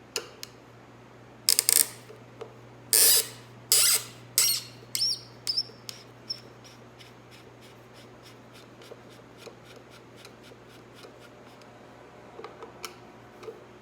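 Hand tools being handled: a handful of loud scrapes and clatters in the first six seconds, then a long run of faint, quick ticks, about three a second, that stops a couple of seconds before the end.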